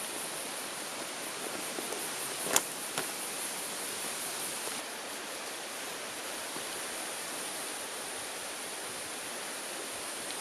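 A forest stream running with a steady rushing hiss, and a high steady whine above it. Two sharp clicks or knocks come about two and a half and three seconds in, the first the louder.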